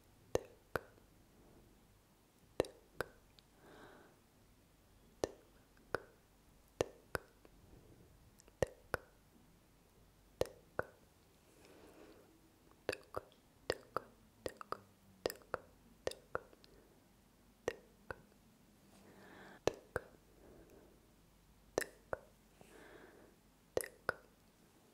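ASMR mouth sounds: sharp 'tk tk' tongue clicks made close to the microphone, coming irregularly and often in quick pairs, with faint breathy whispering between them.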